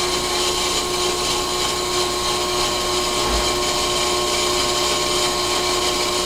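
Brake lathe running steadily with an even whine, its cutting tool taking a slow, fine finishing cut on a hubless brake rotor. It runs smoothly with no strange noises.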